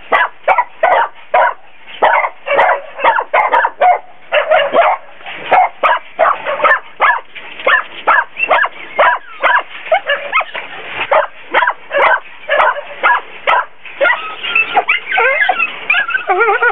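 Many caged dogs barking nonstop, several barks a second and overlapping. Near the end, high whining and yelping cries join the barking.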